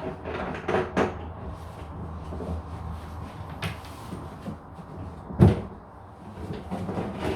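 Knocks and clicks of things being handled, with one loud thump about five and a half seconds in.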